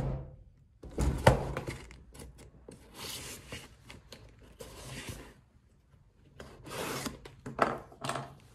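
Cardboard shipping box handled on a wooden table and slit open with a knife: a couple of knocks about a second in, then several short scraping runs as the blade is drawn along the top of the box.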